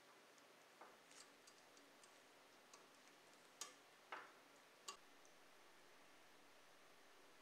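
Near silence broken by about six faint, small clicks and taps of a clear plastic headlight lens piece being handled and pressed into a model car's front end. The three strongest clicks come in the middle, about half a second apart.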